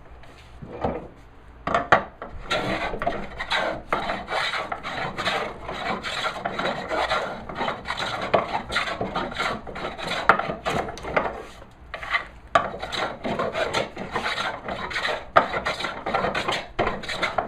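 Stanley No. 40 scrub plane shaving a rough-sawn walnut board: repeated rough scraping strokes of the iron across the wood. The strokes start about two seconds in and pause briefly about two-thirds of the way through.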